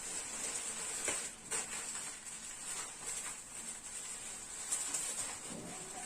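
Faint rustling and a few light clicks as the contents of an opened parcel are handled, over a steady high hiss.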